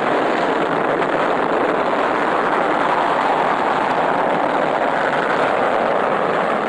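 Rocket engines at liftoff: a loud, steady, even rushing roar of exhaust noise that holds at one level throughout.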